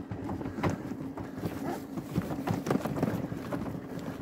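A scooter being pushed along a dry dirt track, with irregular crunching of tyres and footsteps on the dirt over a steady low engine hum.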